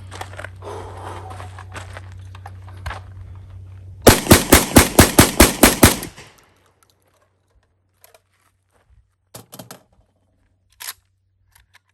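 SDS Lynx 12-gauge semi-automatic shotgun fired rapidly, about ten shots in two seconds, emptying a magazine with each round cycling cleanly. A few faint clicks follow.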